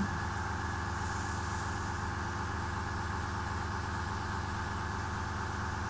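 Small airbrush compressor running steadily, an even, unchanging hum.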